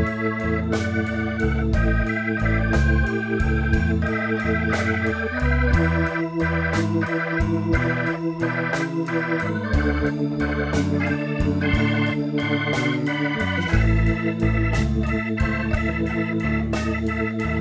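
Instrumental background music: held chords that change every second or two over a moving bass line, with a steady beat.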